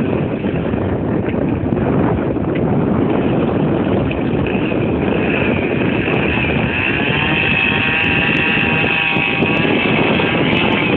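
Wind rumbling on the microphone. About six and a half seconds in, a motor rises in pitch and then runs steadily.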